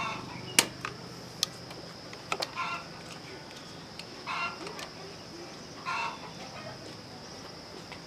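Chicken clucking four times, short calls a second or two apart. Sharp clicks and taps fall between the first three clucks.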